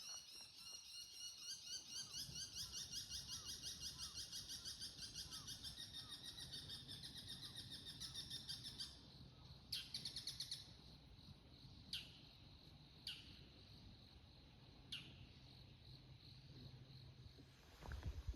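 Bull-headed shrike giving its shrill autumn 'high call' (takanaki), the territorial declaration: sharp high 'kii' notes and a fast run of 'kikikiki' notes about halfway through. Single shrill notes follow a few times, and for the first half a steady high insect trill runs underneath.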